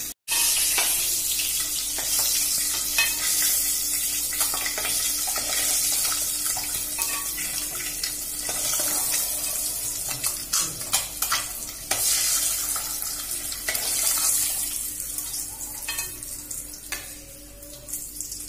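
Hard-boiled eggs frying in hot oil with a pinch of turmeric, sizzling steadily. A steel spoon clinks against the aluminium pot now and then as the eggs are lowered in and turned.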